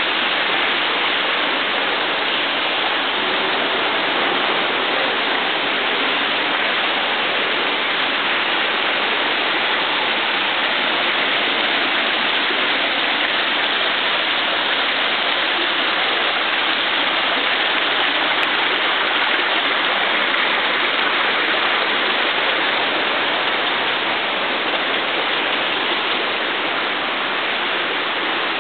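Water splashing steadily from a stone bowl fountain, a constant rushing hiss with no breaks.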